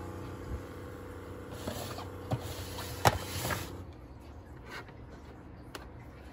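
Keurig K-Latte coffee maker humming steadily, with a hiss and a few sharp clicks over it. The hum and hiss cut off about four seconds in.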